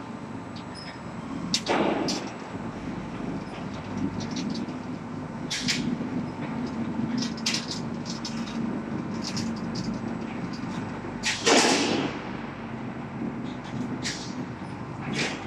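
Highway guardrail roll forming machine running: a steady motor hum with light metallic clicks and clatter as the steel strip feeds through the rollers, and two loud rushing bursts about ten seconds apart.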